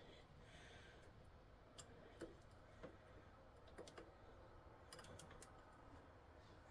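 Near silence with a few faint, scattered light clicks: small metal parts of a roller chain's master link and clip being handled.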